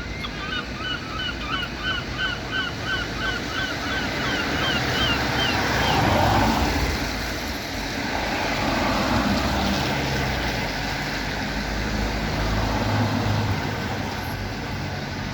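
A bird calling a rapid run of short hooked notes, about three a second, that stops after about five seconds. A steady rumble of passing traffic runs underneath.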